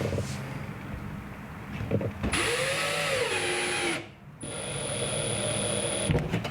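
Power drill driving a screw into a wooden backing board behind drywall, running in two bursts of about two seconds each with a short break between, its motor pitch rising and dipping under load.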